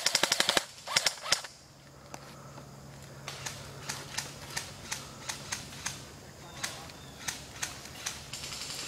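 Airsoft rifles firing: a rapid full-auto burst of sharp clicking shots cuts off about half a second in and is followed by two single shots. After a short lull come quieter single shots, about two or three a second.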